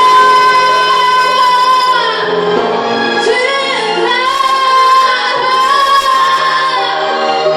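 Female singing over musical accompaniment, the voice holding long sustained high notes, one near the start, others about four and six seconds in.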